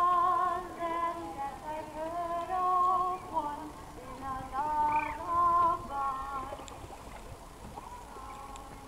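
A slow melody of held, wavering notes, sung or played, stepping up and down in pitch, with a brief higher note about halfway through.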